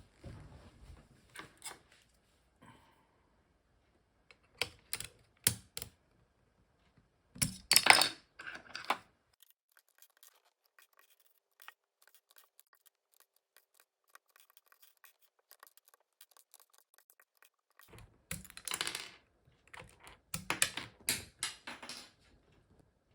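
Plastic keycaps being handled and pressed onto the switches of a mechanical keyboard: scattered sharp clicks and short clatters, with a long near-quiet stretch of faint ticks in the middle.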